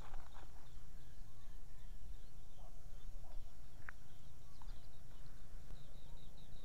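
Small birds chirping faintly and repeatedly in the background over a low steady rumble.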